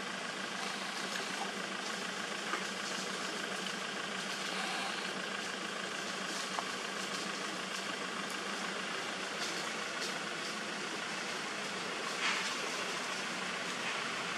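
Steady background hiss with a low, engine-like hum and a few faint clicks.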